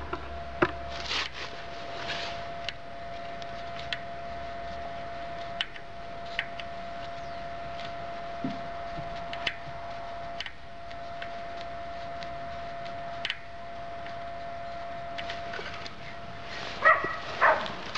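Faint scattered clicks and taps of a screwdriver working a bicycle rear derailleur's chain-tension screw, over a steady high-pitched hum. A short, louder burst comes near the end.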